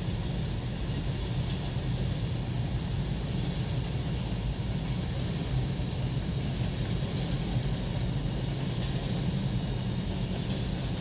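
Freight cars of a passing train rolling by on the rails: a steady, even noise of wheels on track.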